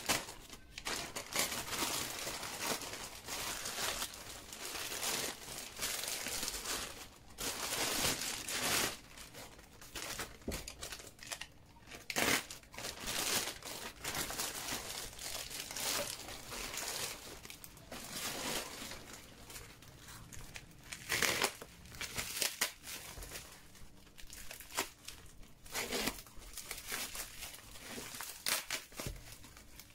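Parcel packaging being handled and opened by hand: irregular crinkling and tearing, in bursts with short pauses between them.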